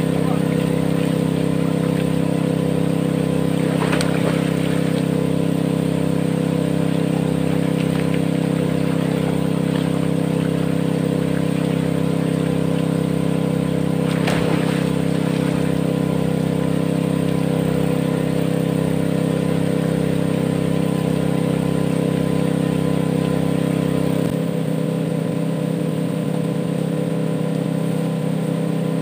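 A small engine running steadily at a constant speed, a continuous even hum.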